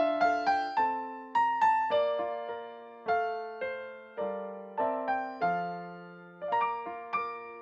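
Gentle closing music on piano or electric piano: single notes and chords struck a few times a second, each fading away.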